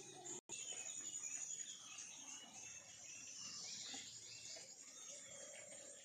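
Garden ambience of insects calling in a steady high drone, with scattered bird chirps over it. The sound cuts out for an instant just under half a second in.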